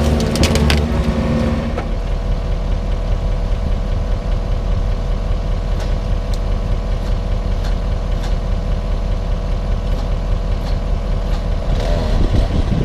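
Excavator's diesel engine running, with a few sharp cracks in the first second or so. About two seconds in, it settles to a steady idle.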